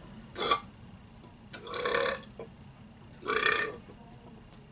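Three short burps about a second and a half apart, the first one briefest.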